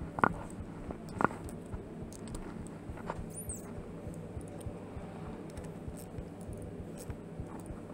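Small metal clicks and taps of a ratchet and socket working a motorcycle handlebar lever clamp bolt, with two sharper clicks in the first second or so, over a steady low hum.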